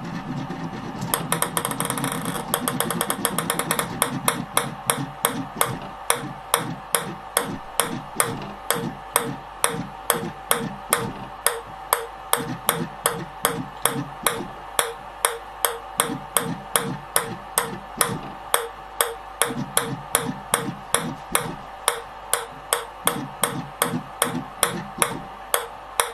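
Ping pong ball bouncing over and over on the clear plastic plate of a motor-driven ball-bouncing machine: a quick run of rapid ticks for the first few seconds, then a regular crisp tap about twice a second. A faint steady hum runs underneath.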